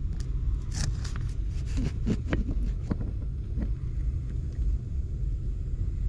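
Steady low rumble of a heat pump's indoor air handler blowing air through the sheet-metal return duct during a static pressure check. Light scrapes and clicks come about one to four seconds in as the manometer's probe tubing is handled.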